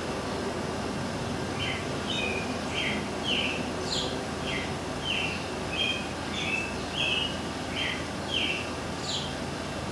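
A bird singing a run of about a dozen short chirping notes, a few of them sweeping sharply upward, over a steady background hiss.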